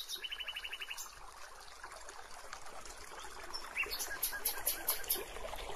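Quiet nature ambience of trickling water with birds: a quick chirping trill about a second in, then a run of short high chirps toward the end.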